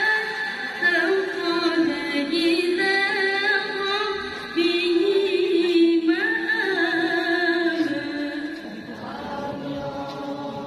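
A woman's solo voice in melodic Quran recitation (tilawah), sung into a microphone: long held notes with ornamented, wavering runs that rise and fall. It grows quieter over the last few seconds.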